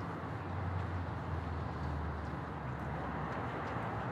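Steady outdoor urban background noise with the low hum of a distant engine, which weakens after about two and a half seconds.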